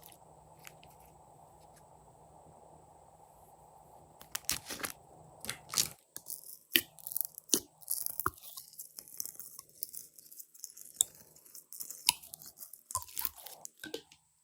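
Glossy slime being kneaded and pressed by hand, giving sharp, irregular clicks and crackling pops. It is faint for the first few seconds; the clicks start about four seconds in and come thickly from then on.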